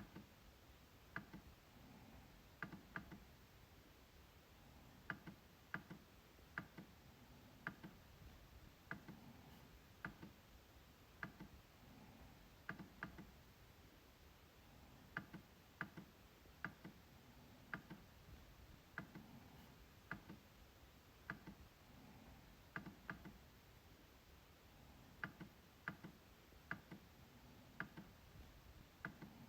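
MacBook trackpad being clicked: quiet, sharp clicks at irregular intervals, often in close pairs.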